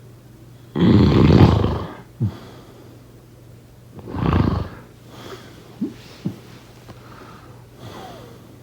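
A sleeping person snoring: a long, loud snore lasting about a second, then a shorter one about three seconds later. Between them come a couple of faint, brief squeaks.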